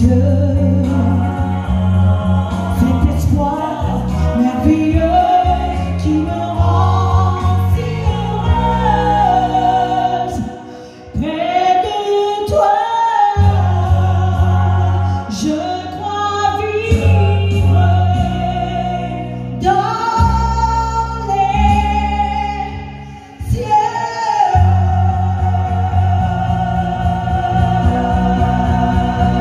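A woman singing live into a handheld microphone over an amplified musical accompaniment with a strong bass line. The bass drops out briefly twice, about eleven seconds in and again about twenty-three seconds in.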